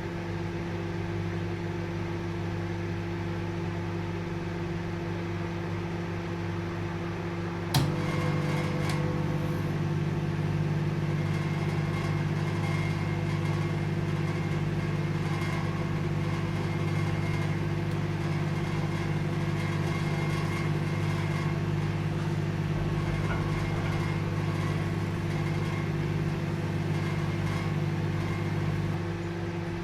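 Microwave oven running: a steady hum with several held tones. A sharp click sounds about eight seconds in, after which the hum is slightly louder, and it eases a little near the end.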